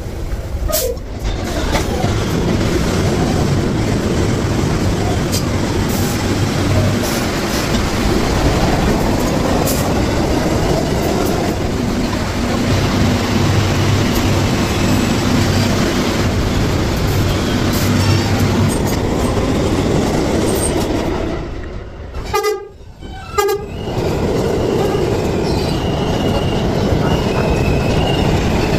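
New York City subway trains in an underground station: the loud, steady rumble and wheel noise of one train leaving and another pulling in. The noise drops out briefly about two-thirds of the way through, then comes back with a few high wheel-squeal tones near the end.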